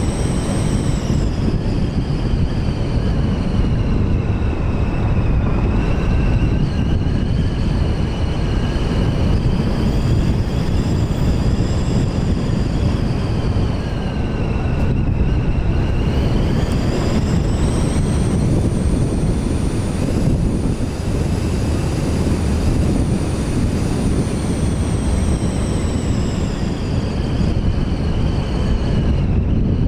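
Car driving fast on a gravel road: a steady low rumble of tyres on gravel and wind, over an engine note that slowly rises and falls with the car's speed.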